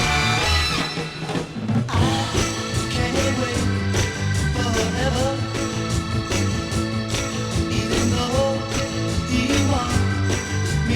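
1960s rock record playing in stereo: electric guitar over bass and drums with a steady beat, easing off briefly about a second in before the full band comes back.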